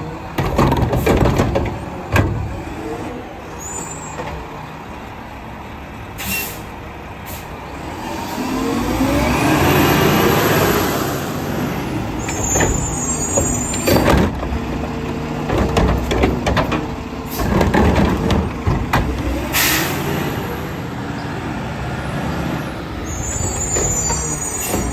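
Mack LR front-loader garbage truck running, its diesel engine revving up for a few seconds about ten seconds in, with short, sharp air-brake hisses three times.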